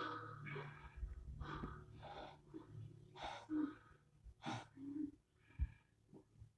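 Quiet, ragged breathing in short gasps and wheezes, about one or two breaths a second.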